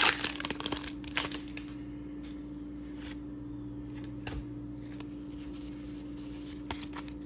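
Foil booster-pack wrapper crinkling as a stack of Pokémon cards is slid out, then a few faint clicks of the cards being handled. A steady low hum runs underneath.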